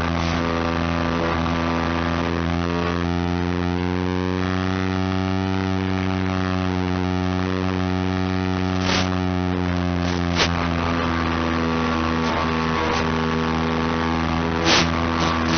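Steady electric hum from an FPV plane's onboard audio feed: the electric motor and propeller mixed with electrical whine. It is a stack of tones that drifts slightly in pitch as the throttle changes. A few short static crackles come near the middle and again near the end.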